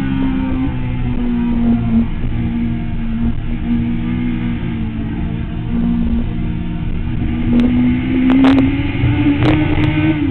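Sport motorcycle engine heard from an onboard camera, holding fairly steady revs mid-corner with small step-downs in pitch, then rising in pitch over the last few seconds as it accelerates. Several sharp clicks near the end.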